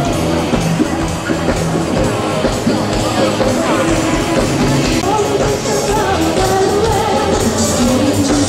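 Loud rock-style music with a singing voice over a steady beat.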